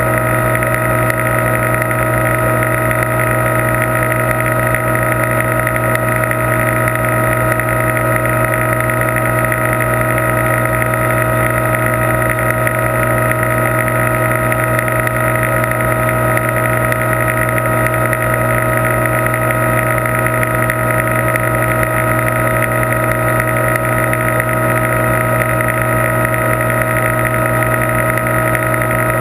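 Steady machine hum made of several held tones over a hiss, unchanging in pitch and level.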